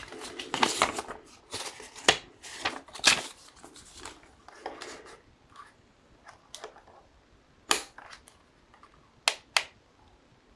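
Parts of a soldering kit and their packaging being handled: a series of sharp clicks and taps of small hard pieces, with short bursts of rustling.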